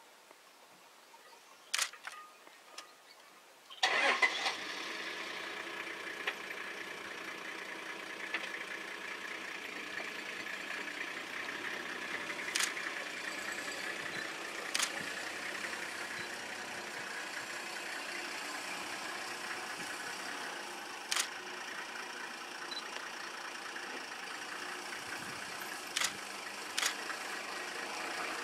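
A vehicle engine starts about four seconds in, then idles steadily. A few sharp clicks come over it.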